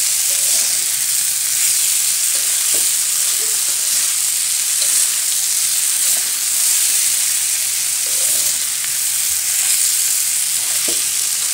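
Stir-fry of shredded young papaya sizzling in a metal pan as a spatula turns it, a steady high hiss with a few light scrapes of the spatula. The dish is near the end of cooking.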